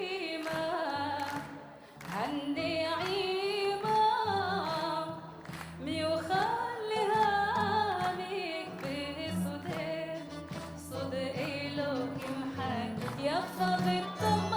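Arabic song: a singer's ornamented melody, sliding between notes, over steady repeating bass notes.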